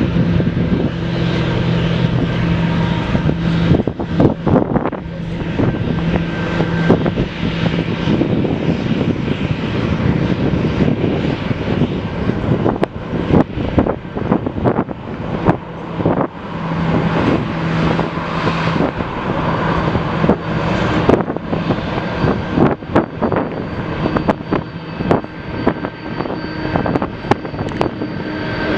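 Jet engines of a Boeing 747-400 freighter running at taxi power, a steady loud drone with low hum tones and a faint high whine coming in near the end, broken by frequent short crackles.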